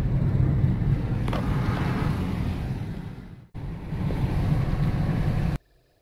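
Road noise inside a moving car's cabin: a steady low rumble with a rushing hiss over it. It breaks off for a moment about halfway through, then cuts off abruptly near the end.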